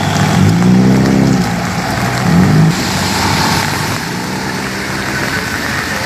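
A passing road vehicle's engine revving up about half a second in and holding for about a second, then briefly rising again about two seconds in, over a steady background hiss.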